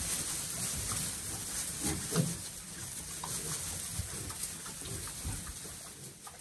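Pigs eating bread: short low grunts and chewing noises scattered at irregular moments, one more pitched grunt about two seconds in.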